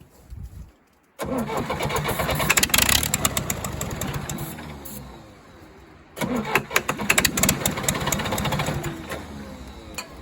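1963 Case 310F bulldozer's diesel engine firing on ether. It catches suddenly about a second in and runs briefly before sagging, then picks up again a little past the middle and fades once more. It cannot keep running because it is not getting fuel, which the owner blames on a gummed-up fuel filter.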